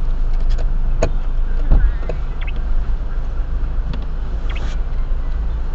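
Car engine idling, heard inside the cabin: a steady low rumble, with a few light clicks and a thump a little under two seconds in.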